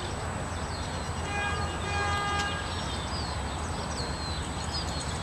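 Outdoor park ambience: a steady low rumble with small birds chirping, and a distant horn sounding once for about a second and a half, starting about a second in.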